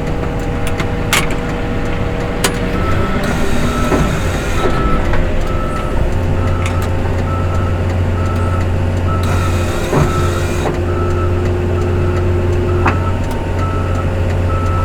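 A heavy machine's reversing alarm beeping steadily, starting about three seconds in, over a diesel engine running; the engine's low drone grows louder about six seconds in.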